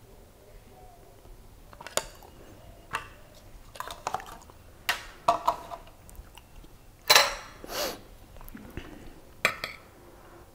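Metal spoon clinking and scraping against a plate and a small plastic sauce cup: a string of separate clicks and knocks about a second apart, with a longer, louder scrape a little past the middle.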